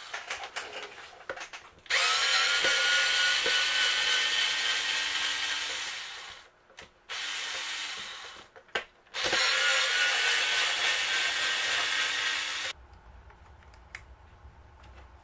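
Cordless drill-driver backing screws out of a plastic control-box housing, its motor whining in three runs: one of about four seconds, a short one, then one of about three and a half seconds. Clicks and rattles of handling come between the runs.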